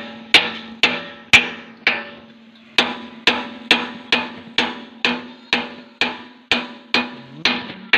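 Hammer blows on steel, about two a second with a short pause about two seconds in, each leaving a metallic ring: a mechanic driving out the hard, stuck pin of a Hitachi Zaxis 135 excavator's boom cylinder.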